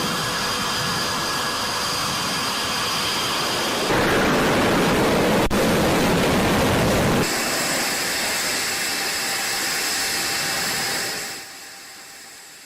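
Fighter jet engines running: a loud, steady rushing noise with high whining tones. The sound changes abruptly twice, about four and seven seconds in, then fades away near the end.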